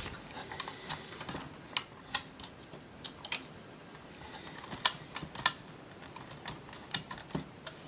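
Irregular light clicks and taps from the laptop's plastic parts and drive assembly being handled and pried during disassembly, a dozen or so scattered through, with a few sharper ones.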